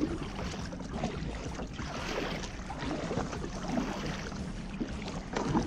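Kayak being paddled through floodwater: irregular paddle splashes, about one a second, over a steady rush of water noise.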